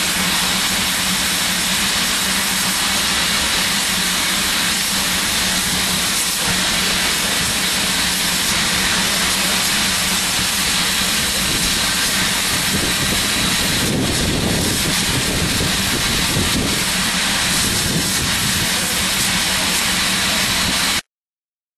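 Steady, loud hiss of escaping locomotive steam with a low steady hum underneath, a little rougher about two-thirds of the way through, cutting off abruptly near the end.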